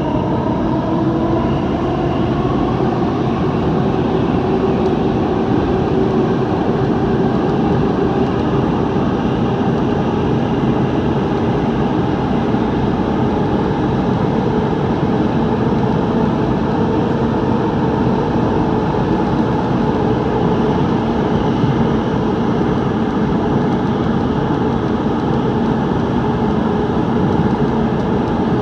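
SBST C951 (Bombardier Movia) Downtown Line metro train running through a tunnel, heard from inside the car: a steady, unbroken rumble of wheels on rail.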